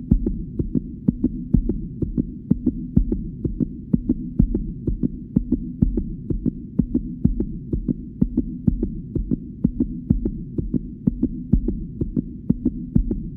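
Heartbeat sound effect: regular, evenly spaced thumps several times a second over a low steady hum.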